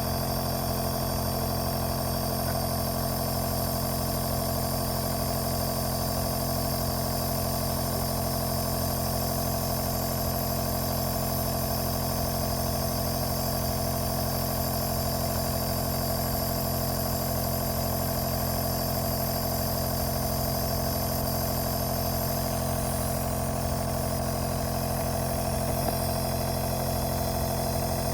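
Compressor nebulizer's electric compressor running steadily, a constant mechanical drone with several fixed tones.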